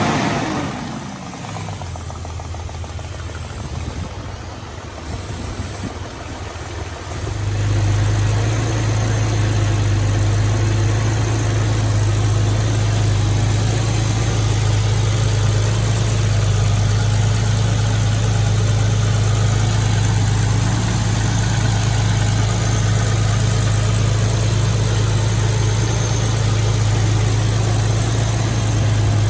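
Rebuilt Jeep XJ 4.6 stroker inline-six engine running steadily at idle. About seven seconds in, it gets louder, with a strong steady low hum.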